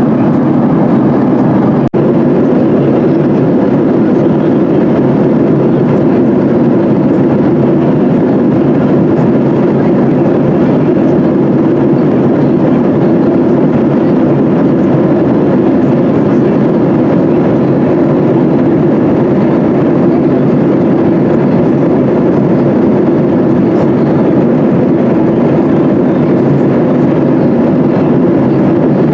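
Steady cabin roar of a Boeing 737-800 in flight, heard from a seat behind the wing: CFM56-7B engine noise and airflow over the fuselage, even and unchanging. It dips for an instant about two seconds in.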